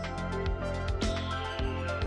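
Electronic outro music with sustained notes over a low bass and a steady beat, with a high tone sliding slowly downward from about a second in.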